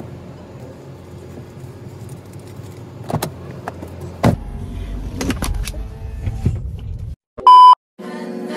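Car engine idling with scattered clicks and knocks as a drive-up bank machine is used through the open window, one knock louder than the rest about four seconds in. About seven seconds in the sound drops out for a very loud electronic beep, and music starts near the end.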